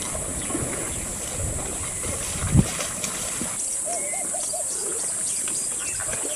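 Outdoor bush ambience with wind rumbling on the microphone over water, and a thump about two and a half seconds in. After that it goes quieter, and a bird gives four short rising-and-falling notes about four seconds in.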